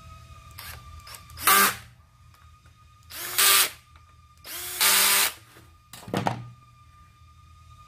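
Cordless drill-driver running in several short bursts, driving screws back into the chainsaw's housing during reassembly.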